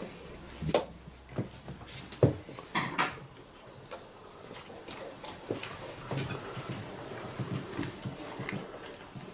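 Golden retriever taking pancake pieces from a hand and chewing them: scattered clicks and smacks of the jaws and mouth, with a busier run of chewing near the end.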